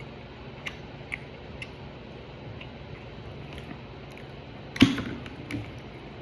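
Someone eating at a table: a few faint clicks of chewing and cutlery, then one sharp knock with a short ring near the end, followed by a softer one.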